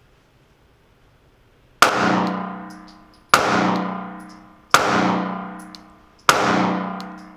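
Four 9mm pistol shots from a Mossberg MC2sc micro-compact, fired at a slow, even pace about a second and a half apart, starting about two seconds in. Each is a sharp crack followed by a long ringing decay from the walls of an indoor range.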